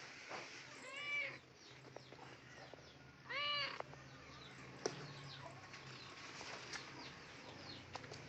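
Kitten meowing twice, two short high-pitched meows whose pitch rises and falls, about two seconds apart.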